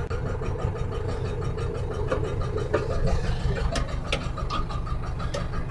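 Hattat tractor's diesel engine idling steadily, heard from inside the cab, while the rear hydraulic lift raises its arms with the hitched implement. A few short light clicks in the second half.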